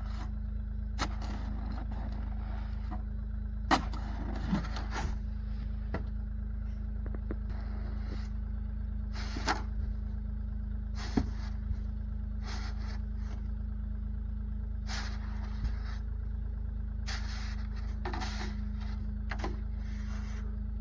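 A vehicle engine running steadily with a low, even drone, with scattered short scrapes and knocks over it.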